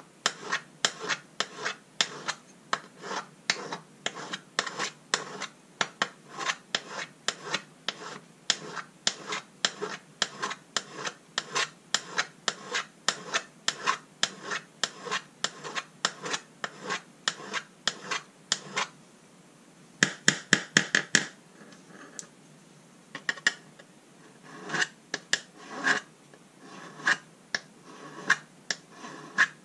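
Small hand file rasping in short strokes along the edge of a sheet-metal tin box, at about two strokes a second. About twenty seconds in comes a quick flurry of faster, louder strokes, then a brief pause, then slower, uneven strokes.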